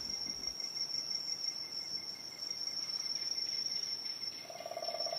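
Night insects, crickets, chirring in a steady high tone. About four and a half seconds in, a second, lower pulsing trill joins.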